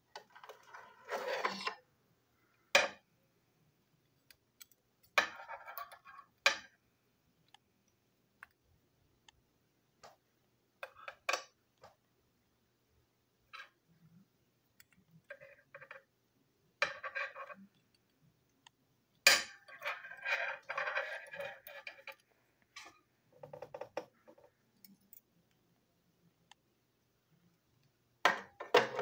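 Scattered clicks, taps and short rattles of small plastic and metal parts being handled: a toy train's electric motor, plastic chassis pieces and a screwdriver knocking and scraping against each other and the tabletop, with quiet gaps between.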